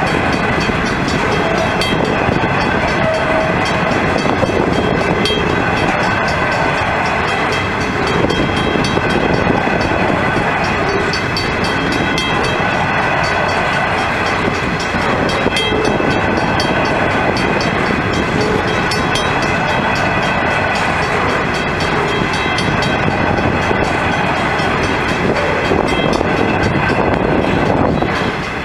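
Steel-wheeled coal hopper wagons of a long freight train rolling steadily past on the rails, a continuous loud rumble and rattle, with a steady high ringing running over it.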